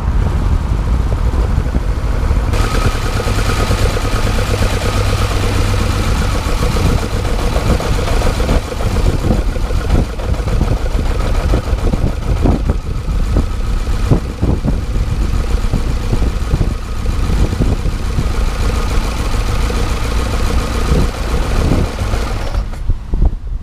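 Ford Escort RS2000 Mk2's Harris Performance-built four-cylinder engine on twin carburettors, heard from inside the engine bay as the car is driven hard: the engine runs under load and revs up and down, with intake noise and sharp cracks mid-way.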